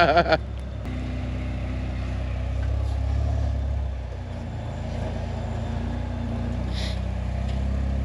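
A rock buggy's 3.4 L Toyota V6 engine running at low revs as the buggy crawls up onto a boulder, the engine note swelling slightly about three seconds in and easing off again.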